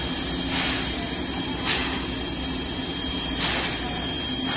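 CK124 steam tank locomotive standing still and hissing steam, with a steady low hum under it and short louder surges of hiss three times.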